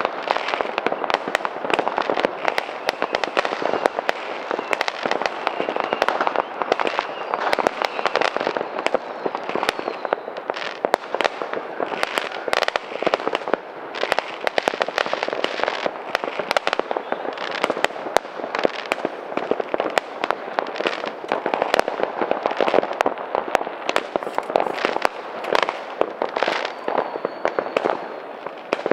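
New Year's fireworks and firecrackers going off densely and continuously: a rapid, overlapping crackle of bangs and pops, with a faint whistle now and then.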